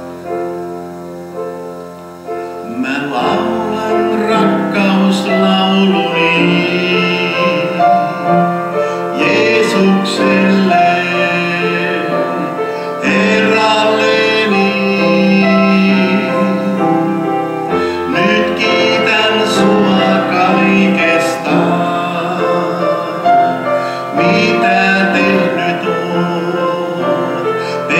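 Keyboard playing long sustained chords. A voice sings a worship song over it in phrases, starting about three seconds in.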